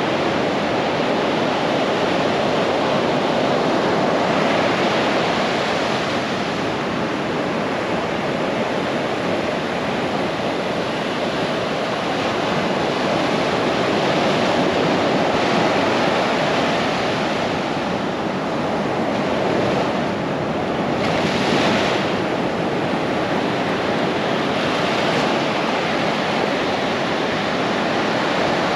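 Pacific surf breaking and its foam washing up and back over the sand, a continuous rushing that swells and eases, with one louder crash about three quarters of the way through.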